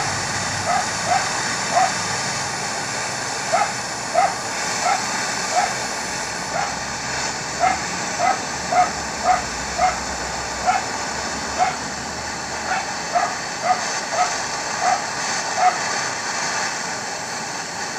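Butane torch flame hissing steadily as it heats a copper tube for silver-rod soldering. Over the hiss come short, high yips from an animal, repeated irregularly about once or twice a second and stopping a little before the end.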